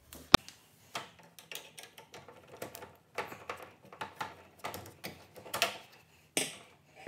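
Screwdriver turning a small screw out of the exercise bike's plastic cover, with a sharp click about a third of a second in, then a run of small irregular clicks, scrapes and rattles of hard plastic being handled.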